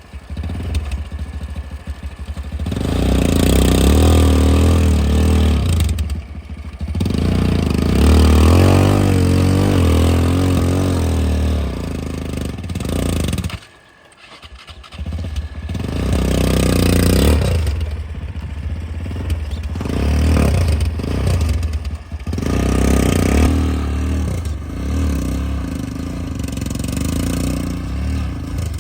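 Bulldozer's diesel engine running hard and rising and falling in pitch as it pushes a load of landfill waste. It briefly drops away about halfway through, then picks up again.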